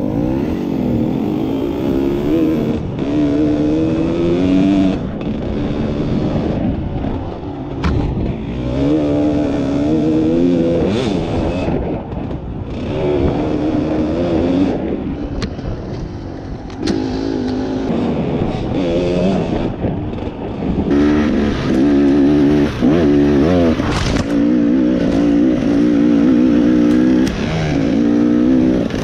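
Enduro dirt bike engine heard up close from the rider's own bike as it is ridden over a rough woodland trail, the revs rising and falling over and over with the throttle. A few sharp knocks from the trail break in along the way.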